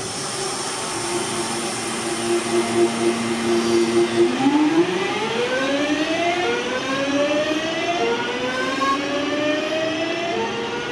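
Class 323 electric multiple unit accelerating away, its traction motors whining. Two steady tones hold for about four seconds, then the whine climbs in pitch in repeated steps, each falling back a little and rising again as the train gathers speed.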